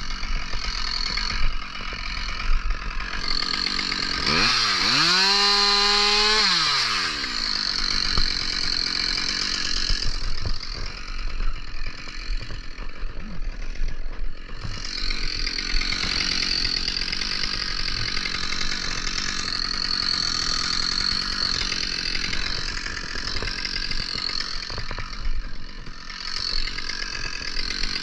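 Husqvarna 572 XP gas chainsaw cutting through wood under load. About four seconds in, the engine revs up freely, its pitch rising, holding and falling back over about three seconds, before it bites back into the cut.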